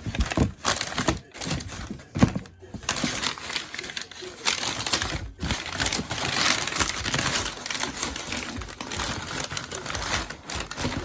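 Parts and packaging of a cold air intake kit being handled and unwrapped: a run of clicks and light knocks, then several seconds of continuous crinkly rustling with small clicks.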